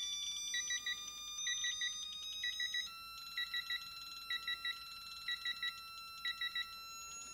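Digital torque adapter beeping in quick triple beeps about once a second as the applied torque nears its 30 ft-lb set point, over a faint steady high tone.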